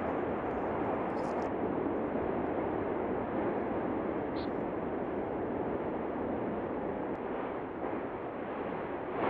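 Volcanic eruption giving off a steady, dense rushing noise with no breaks, the continuous sound of a fissure eruption throwing out lava.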